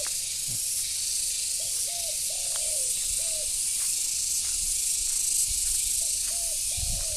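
Spotted dove cooing: two short coos, a longer falling coo and a short coo, with the phrase starting again near the end, over a steady high hiss.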